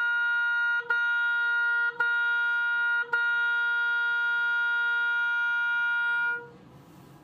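Oboe playing B flat, the same note repeated: three short tongued notes of about a second each, then one long held note that stops a little past six seconds in.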